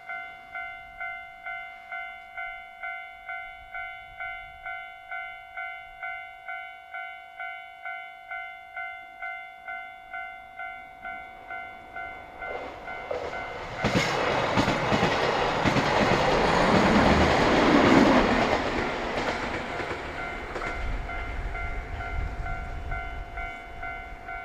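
A Japanese level-crossing alarm rings a pulsing electronic tone about twice a second. About 13 seconds in, a JR Hokkaido KiHa 261 series diesel limited express passes over the crossing, with engine noise and wheels on the rails loudest a few seconds later, while the alarm keeps ringing.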